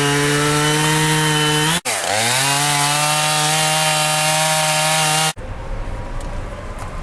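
Gas chainsaw running at high, steady speed. It cuts out for an instant about two seconds in, comes back rising in pitch to full speed, and stops abruptly about five seconds in.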